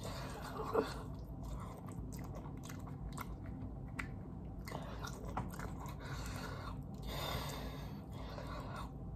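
A person chewing fried chicken close to the microphone, with small wet mouth sounds and scattered short clicks as meat is picked off the bone and bitten.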